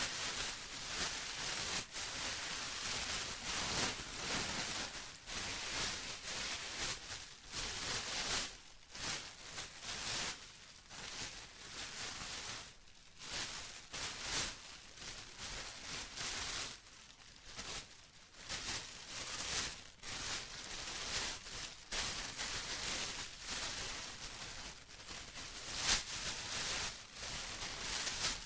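Plastic rustling and crinkling as it is handled, in irregular swells with a few sharp crackles.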